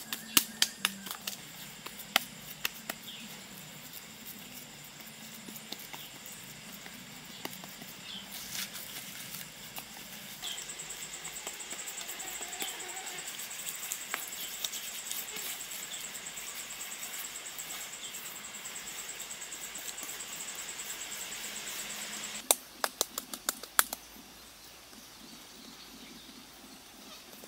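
Hands working wet mud and stones into a wall, with scattered small knocks and taps. Through the middle stretch a steady high-pitched trill sounds over quiet outdoor background.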